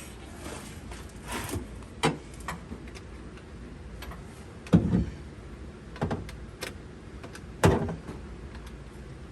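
Hand tools knocking and clanking on metal while a battery terminal clamp nut is worked tight. About seven sharp, irregular knocks, the two loudest about halfway through and near the end.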